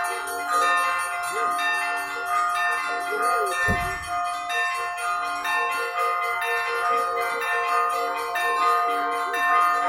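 Russian Orthodox church bells ringing a festive peal for a feast day: several bells of different pitches struck in quick succession, with the small bells rapidly repeating over the lingering tones of the larger ones.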